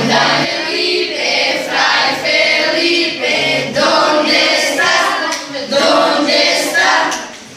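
A group of schoolchildren singing a song together in unison, reading the words from slips of paper, with a short break in the singing just before the end.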